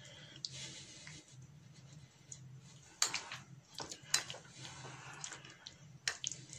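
A metal spoon stirring marinated chicken cubes in a glass bowl, with a few sharp clinks of spoon on glass about 3, 4 and 6 seconds in, over a low steady hum.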